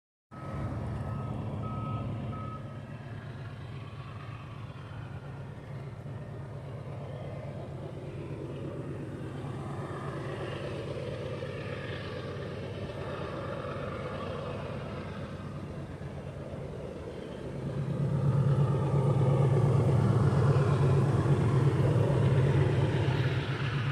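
Diesel engines of the CSX freight train's locomotives, heard before the train comes into view: a steady low engine roar that grows clearly louder about three-quarters of the way in as the train draws closer.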